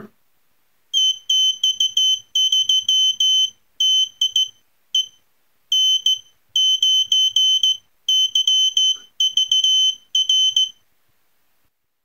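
Morse code practice oscillator sounding a high-pitched beep tone, keyed on and off by hand through its touch sensor: an irregular run of short and long beeps (dits and dahs) that starts about a second in and stops near the end.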